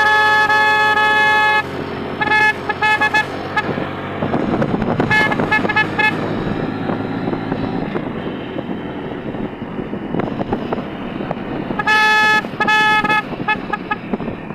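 Vehicle horn honking on a moving vehicle: one long blast of about two seconds, then bursts of short toots about two seconds in, about five seconds in, and again near the end. Engine and road noise run steadily underneath.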